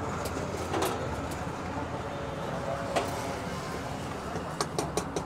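Kitchen knife chopping cabbage on a street-cart counter: a few sharp chops in the first second, one about three seconds in and a quick run of chops near the end, over a steady hum of street traffic.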